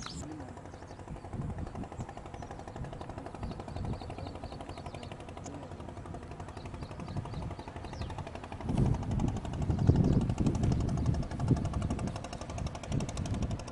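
Wind buffeting the microphone in gusts, strongest from about nine to twelve seconds in, over a fast, even rattle and a few short high chirps.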